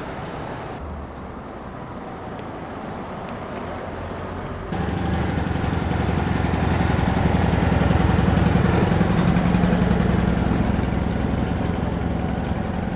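Citroën 2CV van's air-cooled flat-twin engine running as it drives past, coming in loud about five seconds in, peaking a few seconds later and easing off toward the end. A quieter vehicle engine is heard before it.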